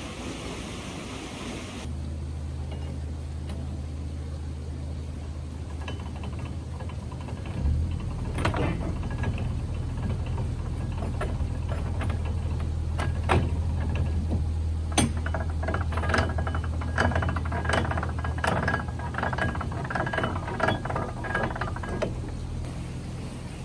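Canal lock paddle gear being wound up with a windlass, its pawl clicking and knocking irregularly on the rack, over the steady low hum of a narrowboat's diesel engine idling.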